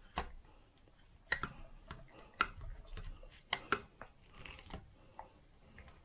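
Faint, irregular clicks and scrapes, about a second apart, of a flat-blade screwdriver tightening the pistol-grip bolt on an AR-15 lower receiver.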